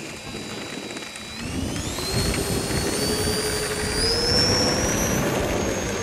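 E-flite A-10 RC jet's twin electric ducted fans whining. The pitch holds low at first, then rises steadily from about a second and a half in as the throttle is opened for the takeoff roll.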